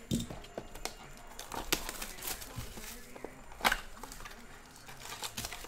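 Clear plastic shrink-wrap being torn and peeled off a sealed trading-card box: crinkling and crackling with scattered clicks and taps, a thump near the start and one sharp click a little past halfway.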